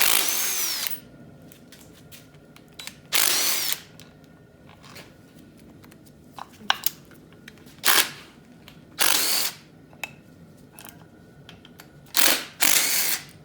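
Cordless power driver fitted with an 8 mm socket, spun in several short bursts of about a second, its motor pitch rising and falling each time, as it backs out the valve cover bolts on a 5.3 LS V8. Small clicks of the socket and bolts come between the bursts.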